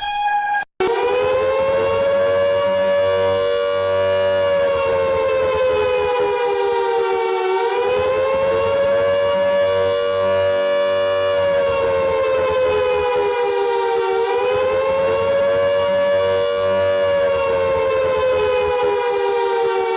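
Civil defense siren wailing in a stack of tones, its pitch slowly sinking and rising again about every six and a half seconds. It starts suddenly just under a second in, right after a short cut from the previous alarm tone.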